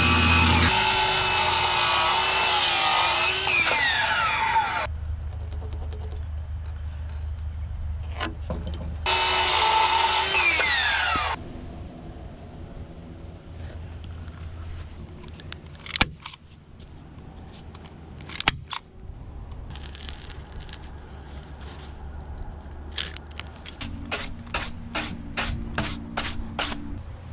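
Cordless circular saw cutting through an old sawn timber twice, its motor whine and blade noise ending in a falling whine as the blade spins down after each cut. Scattered knocks follow, and a quick run of clicks near the end.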